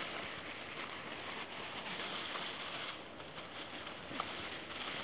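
Dry fallen leaves rustling and crackling as they are scooped up by hand and tossed, while a Cavalier King Charles spaniel scrabbles and pounces through the leaf litter.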